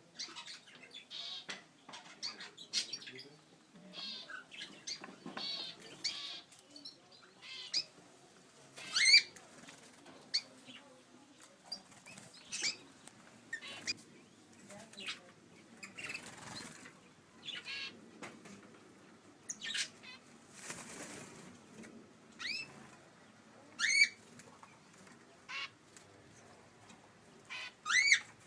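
Mixed small cage birds in an aviary (budgerigars, cockatiels, canaries and others) chirping and chattering. Sharp, rising calls come every few seconds and are the loudest sounds, with wings fluttering now and then.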